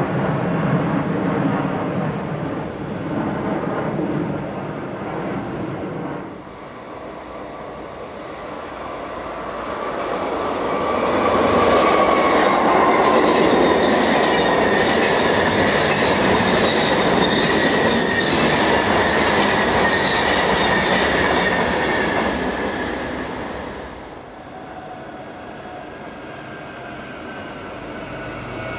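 Electric train passing through a station: it builds up, runs loud for about ten seconds with a high whine that slowly falls in pitch, then fades away.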